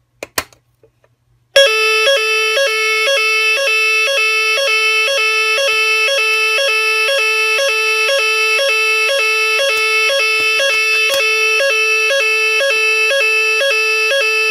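Lumatic DS-SA 96 006 fire-alarm sounder (BAAS Sa) set off: after a couple of clicks, it starts about a second and a half in and sounds loudly and continuously. The signal is a steady low tone broken by a short higher note about twice a second, the pattern of the French standard fire-evacuation signal.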